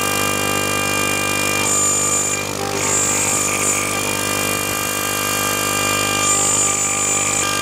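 6040 CNC router spindle running at about 35,000 RPM while a TiAlN-coated end mill cuts 5 mm aluminium plate. It makes a steady, many-toned whine, and a high-pitched note comes and goes several times as the cutter moves along the toolpath.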